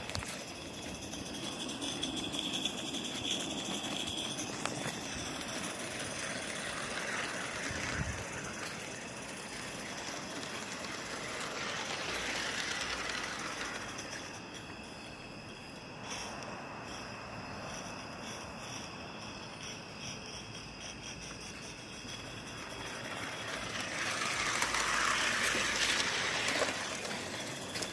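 Live-steam Forney model locomotive running on its track: a steady hiss of steam that swells several times, loudest a few seconds before the end.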